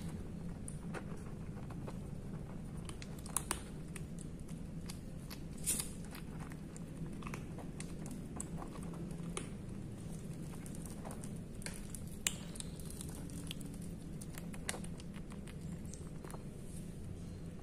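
Two kittens crunching dry kibble from a plastic bowl: irregular small crunches and clicks, with a few louder knocks, over a steady low hum.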